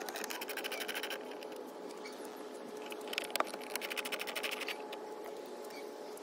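Ratcheting hand driver with a T20 Torx bit clicking rapidly in two runs, in the first second and again about three seconds in, as the screws holding a car's rear spoiler are backed out.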